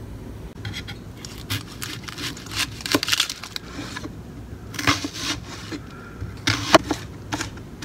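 Chef's knife cutting through an onion on a wooden cutting board: uneven crunching slices with a few sharp knocks of the blade on the board.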